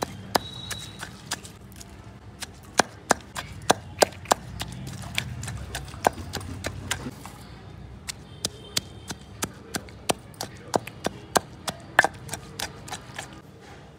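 A long pestle pounding chopped onions in a stone mortar: a run of sharp knocks, about two to three a second and unevenly spaced, as the pestle strikes the onions and the stone.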